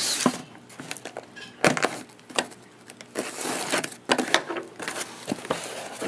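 Utility knife slicing through packing tape along the seam of a corrugated cardboard box, a run of scrapes and sharp clicks, followed near the end by the cardboard flaps being pulled open.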